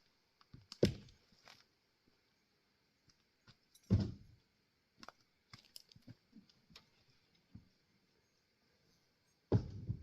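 Axe blows splitting Douglas fir firewood: three heavy chops a few seconds apart, the last one longest, with lighter knocks and clatter of wood pieces in between.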